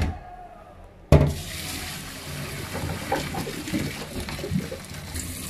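Hot water poured from a pot through a plastic colander into a stainless steel sink, draining parboiled potato slices. It starts abruptly about a second in with a splash and runs on as a steady pour.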